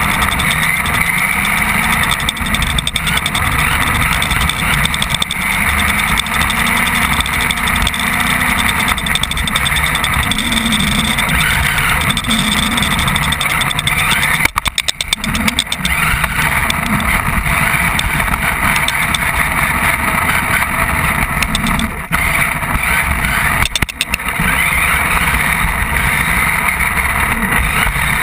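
Radio-controlled car running, heard through a camera mounted on the car: its motor and drivetrain keep rising and falling in pitch as it speeds up and slows. The sound drops off briefly a few times, most clearly about fifteen seconds in.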